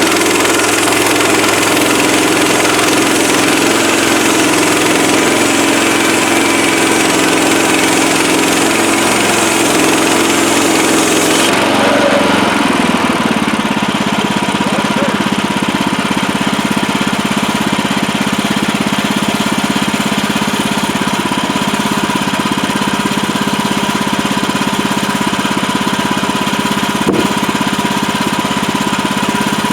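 Portable bandsaw sawmill's gasoline engine running steadily. About twelve seconds in, a high hiss cuts off suddenly and the engine note drops lower, then runs on evenly.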